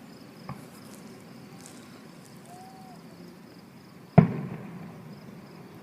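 A firework shell bursting: a small pop about half a second in, then one loud bang about four seconds in that echoes away over about a second.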